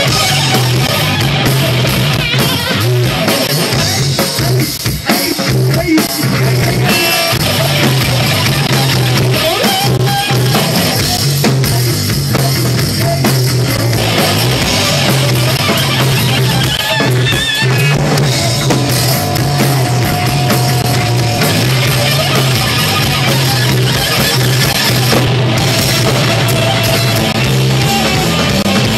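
A rock trio playing loud and live: electric guitar, bass guitar and a drum kit in a steady instrumental passage.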